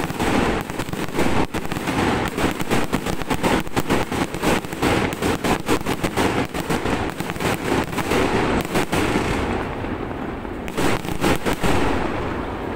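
Aerial fireworks bursting overhead in a dense, rapid crackle of many sharp pops, from crackling star shells. The crackle thins out about ten seconds in, returns briefly, then fades near the end.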